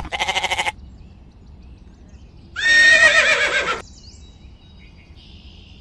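Horse whinny, one call about a second long with a wavering pitch, beginning near the middle. It follows a short pulsing goat bleat in the first moment.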